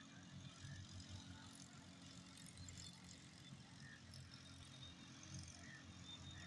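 Faint, steady low rumble of the Millat Express passenger train's coaches rolling away along the track.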